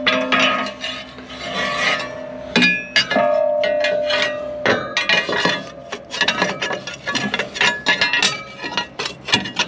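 Steel baler knives and blanks clinking, knocking and scraping as they are worked in and out of the slots of a round baler's chopping unit, with several strikes leaving the metal ringing briefly.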